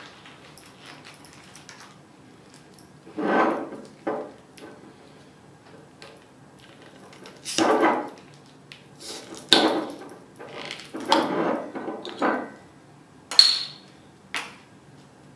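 A sheet of paper folded into a hard wedge rustles faintly, then is knocked and levered against a glass bottle's metal crown cap in several short scraping knocks. About thirteen seconds in comes a sharp metallic clink as the crown cap pops off and lands.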